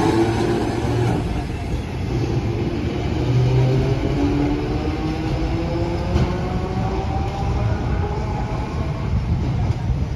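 Hiroshima Electric Railway 700-series tram with nose-suspended traction motors, running with its distinctive drive whine; the pitch climbs twice as the tram accelerates, over a low rumble.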